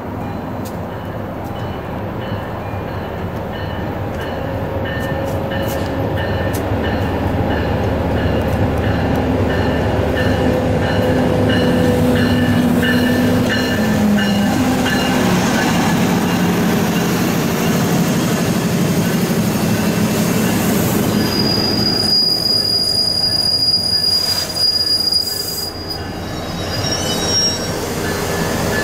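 MBTA commuter train pulling past the platform: the diesel locomotive's engine grows louder as it comes by, followed by the rumble of the coaches on the rails. A high, steady metallic squeal from the wheels lasts about three seconds near the end.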